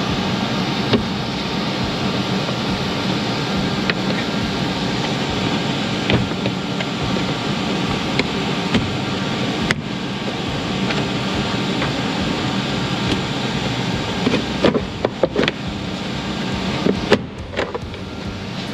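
A steady mechanical drone, with a few sharp plastic knocks and rattles as a plastic floor panel is worked loose and lifted out, most of them a little after the middle.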